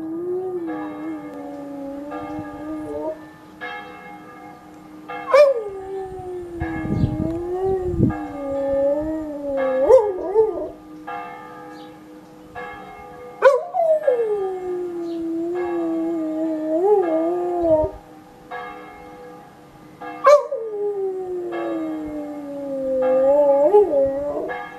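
A dog howling along with ringing church bells. Its long howls start high, slide down and hold with a wavering pitch; one is under way at the start and others begin about five, thirteen and twenty seconds in. Under them the bells are struck about once a second.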